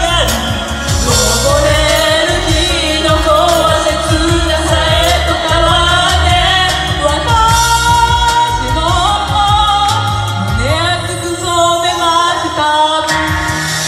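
Pop vocals sung live into microphones over a recorded backing track with a steady bass line; the singing stops near the end, leaving the backing track.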